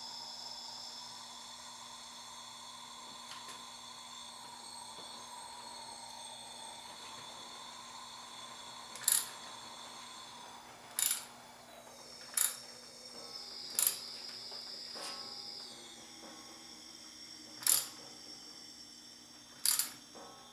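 Shop air hissing and whistling steadily out of a Honda CB550 engine's cylinder through a leak-down tester, the tone shifting in pitch as the crankshaft is turned by hand toward top dead center. Six short sharp clicks of the wrench on the crankshaft from about nine seconds in.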